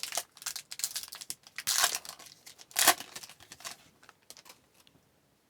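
Foil wrapper of a hockey card pack being torn open and crinkled: rapid crackling with two louder rips about two and three seconds in, dying away after about four seconds.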